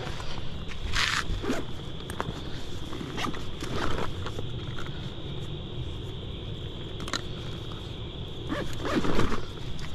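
Close handling noise: zipper-like scrapes and rustling as fishing gear is rummaged, loudest about a second in and again near the end. Behind it runs a steady high trill of insects.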